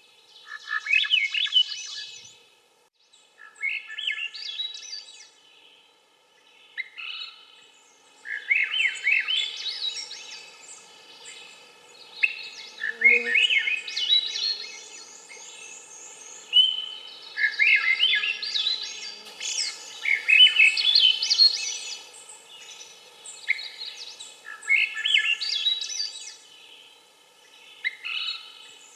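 Swainson's thrush singing: repeated song phrases, each a second or two long, that climb upward in pitch, separated by short pauses.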